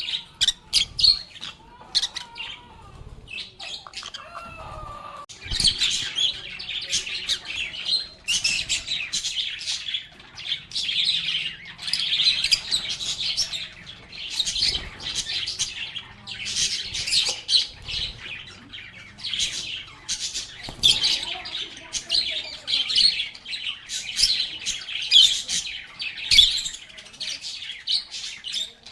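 A flock of lovebirds chirping and chattering: a few scattered calls at first, then from about five seconds in a dense, continuous stream of rapid high-pitched chirps.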